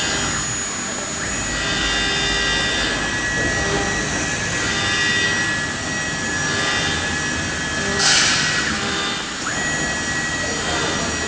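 CNC router's axis drive motors whining as the gantry jogs the X, Y and Z axes at high speed, with slow swells as the moves change. About eight seconds in there is a short hiss, and the whine drops out and then rises back in about a second later as a move starts up again.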